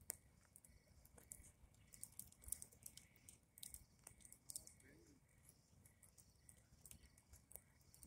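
Faint crackling of a wood fire burning a plastic Atari 2600 joystick: irregular sharp pops and ticks scattered throughout, over a faint steady high tone.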